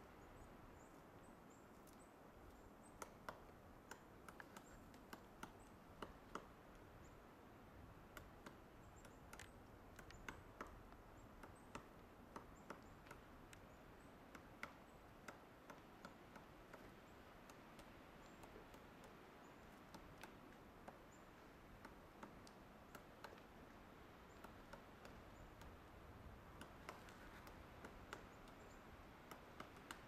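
Pileated woodpecker chiselling into a dead tree trunk: faint, irregularly spaced sharp knocks of its bill in the wood, about one or two a second, over a steady low hiss.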